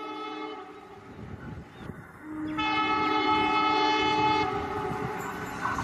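Indian Railways WDM-3A diesel locomotive sounding its multi-tone horn twice as the train approaches. The first blast fades within about two seconds. The second, louder and longer one starts about two and a half seconds in, with the rumble of the engine and train running underneath.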